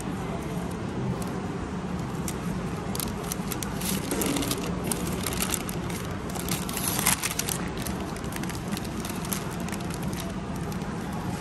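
Brown paper bag and paper wrapping crinkled and rustled by hand as it is opened. The crackling comes in a burst in the middle, loudest about seven seconds in, over a steady background hum.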